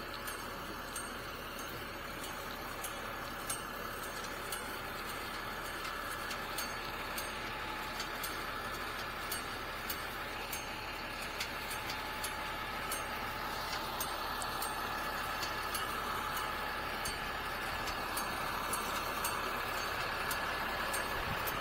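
Crane truck's engine running steadily as the boom lifts a heavy load, growing gradually louder, with scattered light clicks over it.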